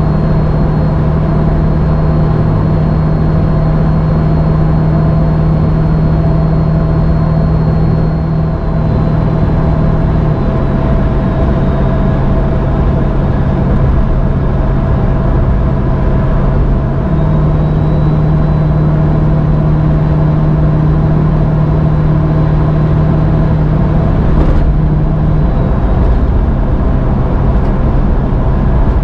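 Steady drone of a 7.3L turbo-diesel Ford F-350 pickup cruising at highway speed, with road noise, heard from inside the cab. Its low hum steps down in pitch about ten seconds in and back up a few seconds later.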